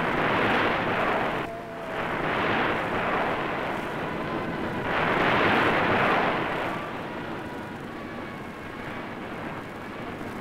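Sea waves surging, a rushing wash that swells and falls back in three big surges.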